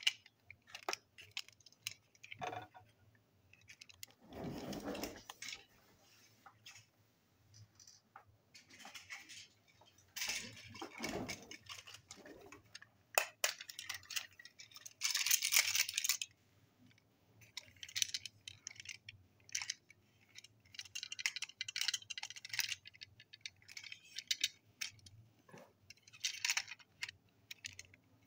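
Small toy train trucks handled in the hands: irregular clicks, clinks and light rattles of wheels and couplings, with a few brief rubbing scrapes.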